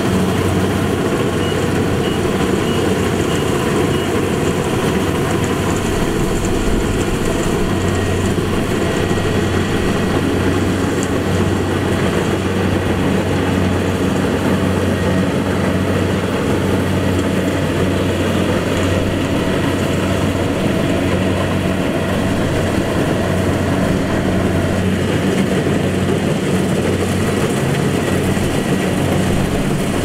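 Rice combine harvester running steadily: a constant engine hum with an even wash of machinery noise over it.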